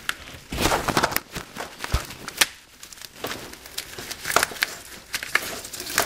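Handling noise of hands working among the engine bay's hoses and wiring: rustling with scattered light clicks, and a dull knock about two seconds in.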